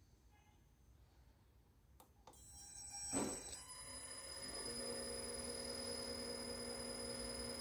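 Danfoss FC-102 variable-frequency drive under test starting up: two clicks about two seconds in, then a rising hum that settles into a steady electrical whine with a constant high-pitched tone.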